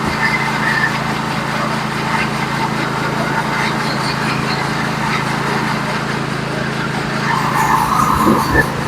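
Bandsaw sawmill running steadily as its blade is fed slowly through a wide white oak log, with a brief higher-pitched sound near the end.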